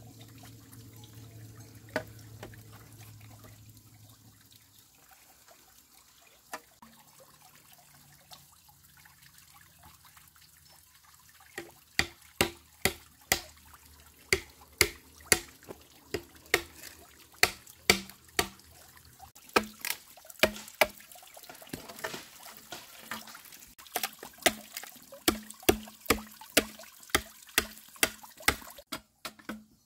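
Sharp knocks in a quick, even series, about two a second, starting around the middle and running on to the end. A low steady hum is heard in the first few seconds.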